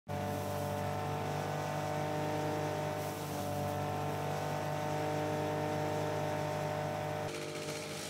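Chaff cutter running steadily, driven by its small single-cylinder diesel engine, as dried grass is fed through and chopped. The sound changes abruptly near the end.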